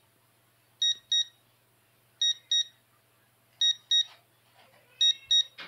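SOEKS Impulse EMF meter's alarm beeping: a high double beep repeated about every one and a half seconds, four pairs in all. It is the meter's warning that the electric field from the LED lamp it is held under exceeds the residential limit.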